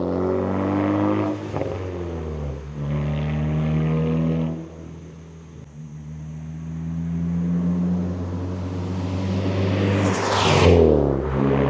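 Big-turbo Ford Focus ST accelerating toward and passing close by, its engine note easing off and quieter around the middle, then rising again and loudest as it goes past about ten seconds in. A faint high turbo whistle climbs just before the pass.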